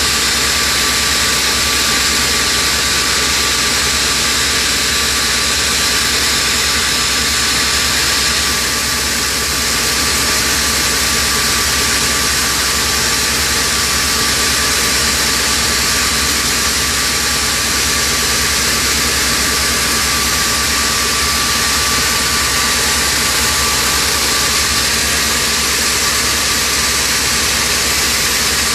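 Hangzhou Fortune oxygen-making machine running steadily: a loud, even hiss and hum with a thin steady whine through it.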